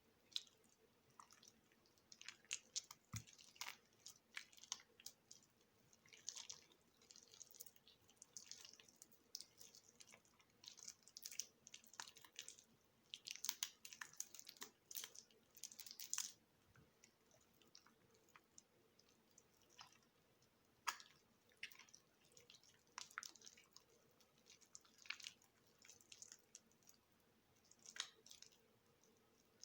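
Faint, irregular crackling and squishy scraping of a water-softened, mushy bar of soap being cut, in short clusters with a quieter spell about two-thirds of the way through.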